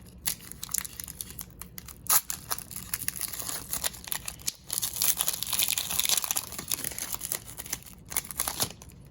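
Foil wrapper of a Pokémon XY Evolutions booster pack crinkling and tearing as it is ripped open by hand. It is a dense run of crackles, heaviest around the middle.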